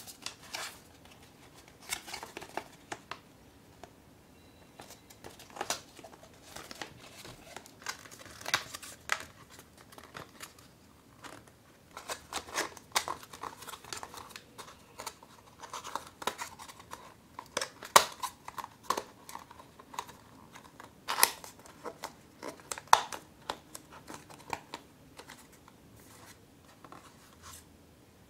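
Stiff paperboard being folded and handled: irregular crisp snaps and clicks as creases are bent and tabs pressed into place, with scraping rustles of card sliding against card between them.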